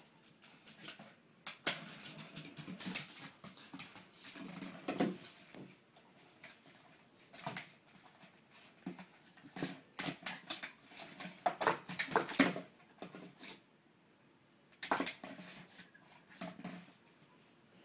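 Maltese puppy playing with a water bottle: irregular bursts of clicks, knocks and crackles as the bottle is pushed and handled, with a couple of brief lulls.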